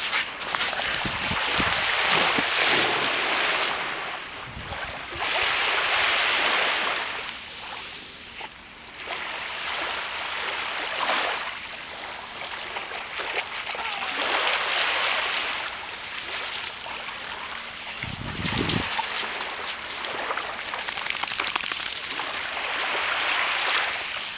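Small Baltic Sea waves washing onto a sand-and-pebble shore, the wash swelling and fading every few seconds. A brief low rumble comes a little past halfway.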